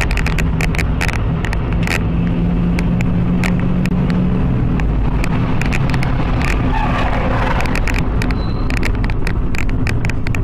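Car engine running with steady road noise and many sharp clicks and knocks.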